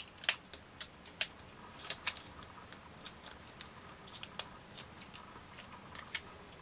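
Light, irregular clicks and crinkles of paper being handled as the release backing is peeled off foam adhesive tape on a card circle.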